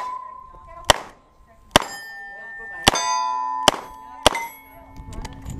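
Revolver shots fired about a second apart, five in all, each hit answered by steel target plates ringing with a clear metallic tone that carries on between shots.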